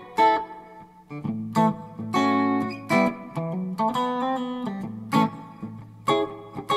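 Firefly FFLS electric guitar played with a clean tone: plucked chords and single notes, some strummed, ringing out between attacks, with a few notes bending in pitch. A steady low hum sits underneath.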